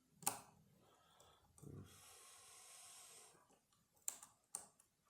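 Faint, sharp clicks from lever-lock picking tools working the levers of a Banham five-lever mortice lock: one just after the start and two close together near the end. A soft breath in the middle.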